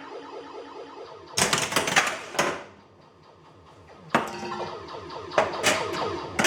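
Bally Eight Ball Deluxe pinball machine in play: sharp mechanical clacks from the playfield, three about a second in and a second cluster from about four seconds on, over the machine's pitched electronic sound effects.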